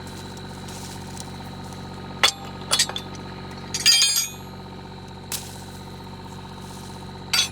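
Metal objects clinking and clanking, a handful of sharp ringing strikes with a longer rattling clatter about four seconds in, over the steady running of an idling excavator engine.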